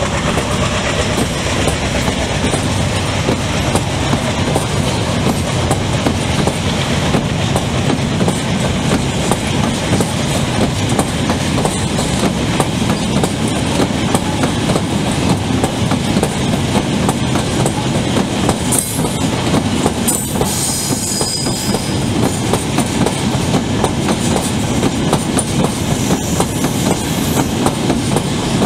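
Long freight train of open wagons rolling past at speed, the wheels clattering steadily over the rail joints. A brief high wheel squeal comes about two-thirds of the way through.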